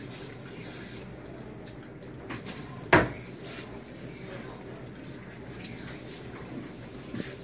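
A single sharp knock of a hard object about three seconds in, with fainter clicks shortly before and near the end, over a steady low background hum.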